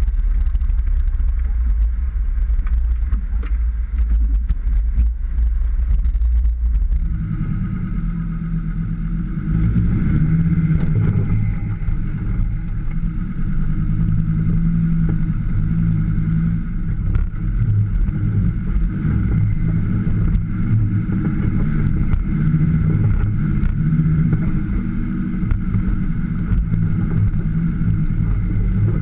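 Off-road 4x4 engine running with a low rumble, which becomes a louder, fuller engine note about seven seconds in and holds steady under load.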